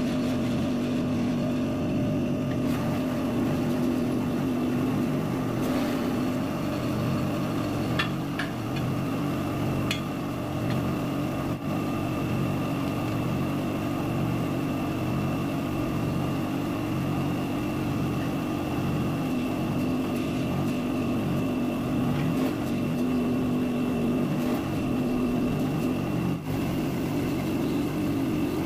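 Steady mechanical hum of a hydraulic press's motor-driven pump running, with a couple of light metallic clicks about a third of the way in.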